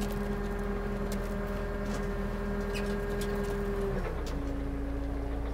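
An engine running steadily, its pitch dropping a step about four seconds in as it slows.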